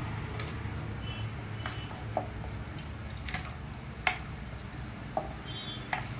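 Raw chicken pieces being scraped with a wooden spatula out of an aluminium bowl into a frying pan: soft wet squishes and about half a dozen light knocks of the spatula against the bowl and pan, over a steady low hum.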